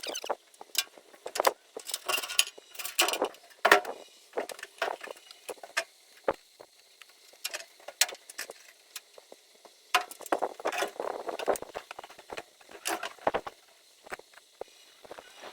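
Irregular clinks, knocks and rattles of gear being handled, scattered unevenly with brief lulls.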